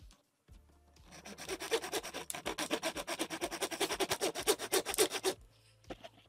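Hacksaw cutting through the die-cast metal roof pillar of a 1:64 Hot Wheels Corvette C6 in quick, short back-and-forth strokes. The strokes start about a second in and stop near the end.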